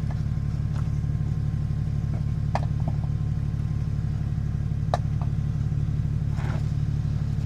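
Off-road vehicle engine running steadily at low revs, with a few short sharp clicks or knocks over it.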